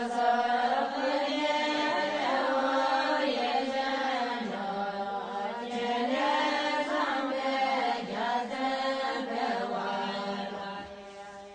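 Soundtrack of slow, mantra-like vocal chanting: one long sustained phrase whose pitch slowly rises and falls, fading out near the end.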